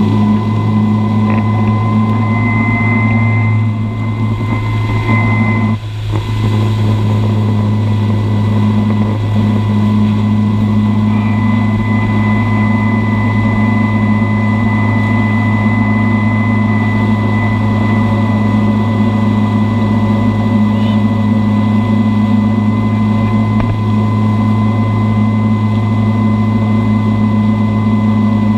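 Wake boat's inboard engine running steadily under way, a continuous deep drone with a thin steady whine above it, over the rush of water churned up behind the boat.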